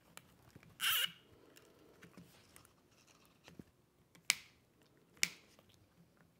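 A nylon zip tie pulled tight with a short ratcheting rasp about a second in, then two sharp snips of cutters about a second apart in the second half.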